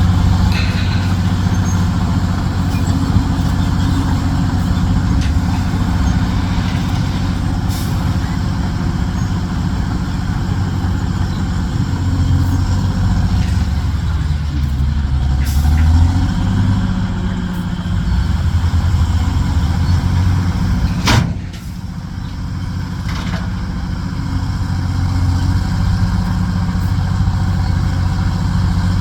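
Heavy diesel dump truck engine running steadily; about halfway through its note sags and then picks back up. About twenty-one seconds in there is a short, sharp burst of hissing air, after which the engine is a little quieter.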